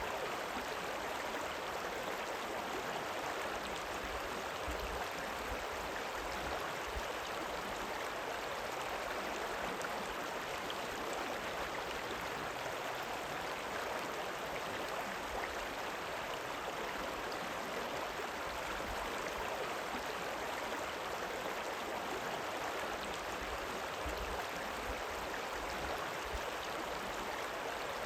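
A rippling river running steadily: an even, unbroken rush of moving water.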